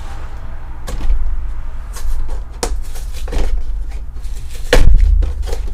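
A Pokémon TCG collection box is handled and opened close to the microphone: a string of knocks, clacks and scrapes, the heaviest a thump about five seconds in, over a steady low hum.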